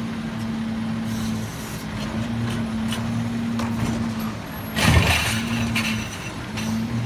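Peterbilt 320 garbage truck running with a steady hydraulic hum as its McNeilus Autoreach side-loader arm lowers an emptied cart back to the curb. There is a loud clunk with a short hiss about five seconds in.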